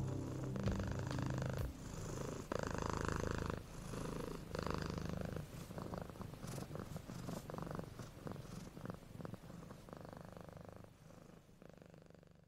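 Domestic cat purring in slow cycles, each stretch of purr about a second long with short breaks between, fading out near the end.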